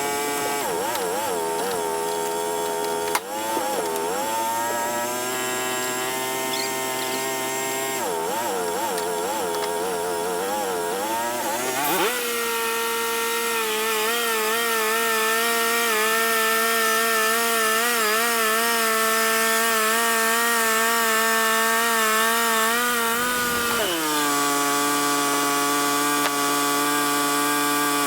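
Engine of a portable bandsaw sawmill running under load while sawing a black walnut log. The pitch wavers and sags for the first twelve seconds, rises to a higher, steady speed about twelve seconds in, and drops lower again a few seconds before the end.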